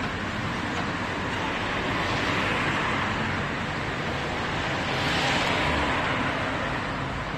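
Street traffic noise: a steady hiss of passing vehicles that swells twice, about two and five seconds in.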